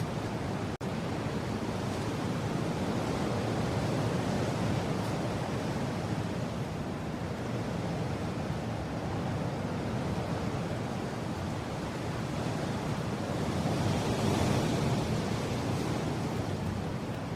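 Steady rushing wind, mostly low, that swells louder about fourteen seconds in, with a split-second dropout about a second in.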